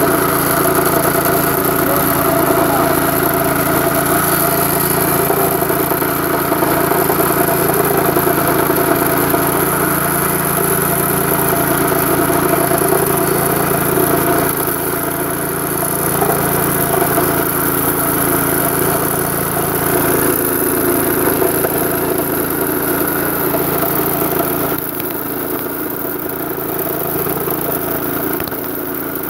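Petrol-engine abrasive rail saw running steadily at speed while its cutting disc grinds through a steel rail: a constant engine drone with a high grinding hiss. The level drops slightly a few times in the second half.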